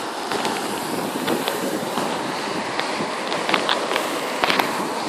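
Storm wind and rain: a steady rushing hiss with many scattered sharp ticks through it.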